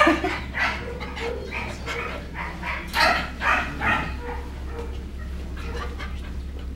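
Shelter dogs barking in their kennels, in short clustered barks that are loudest about three seconds in and thin out after about four seconds.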